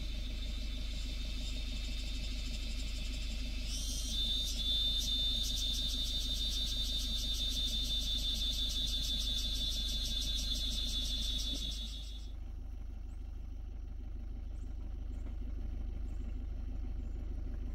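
Cicadas buzzing in a steady high pitch. The buzz swells about four seconds in and cuts off suddenly about two-thirds of the way through, over the low steady hum of an idling vehicle engine.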